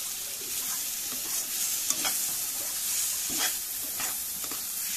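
Spiced bitter gourd (karela) curry sizzling in a kadai while a slotted metal spatula stirs it and scrapes the pan, giving several short scrapes over a steady hiss. The curry is cooked down and quite dry.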